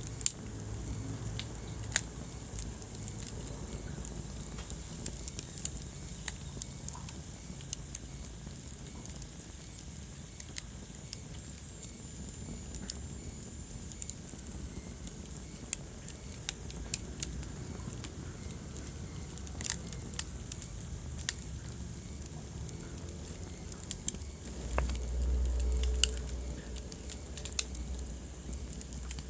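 Wood fire crackling in a fireplace: sharp, irregular pops and snaps over a low steady rumble of the flames, with a brief louder low rumble near the end.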